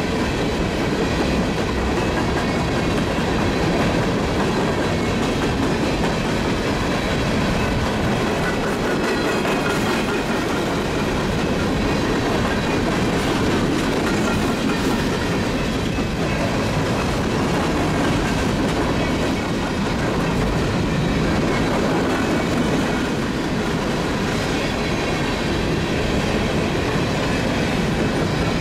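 Empty coal hopper cars of a freight train rolling by in a steady, continuous rumble of wheels on rail, with clickety-clack over the rail joints.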